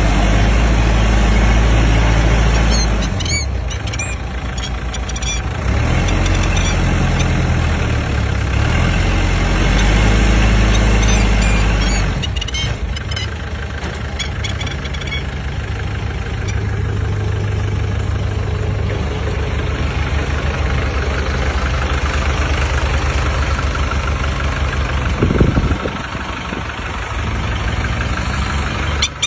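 Tractor engine running steadily while ploughing, its low hum rising and falling in level as the load changes, with a brief sharp burst of sound about 25 seconds in.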